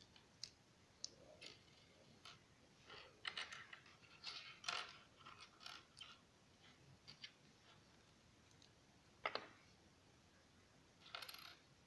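Plastic Lego bricks being handled and pressed together: faint scattered clicks and small rattles, with one sharper click about nine seconds in.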